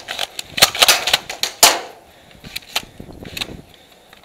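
Airsoft gunfire: a quick run of sharp cracks and snaps during the first two seconds, then a few scattered, quieter ones.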